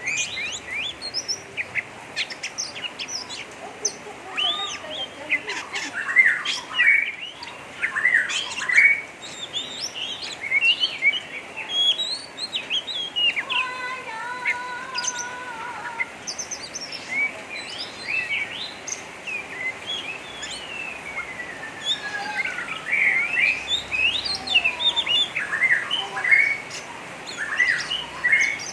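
Oriental magpie-robin (kacer) singing in a rough, rapid 'ngeriwik' chatter: a dense run of quick chirps and short whistles. It holds a steady two-tone note about fourteen seconds in and gives a long falling whistle just after twenty seconds.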